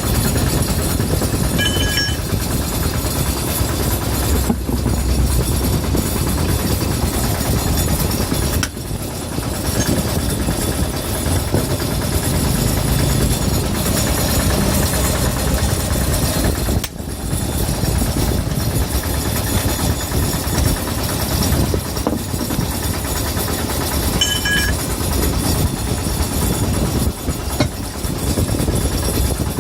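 Motor vehicle running steadily, with constant road and rumble noise. There are two short high beeps, about two seconds in and again near the end.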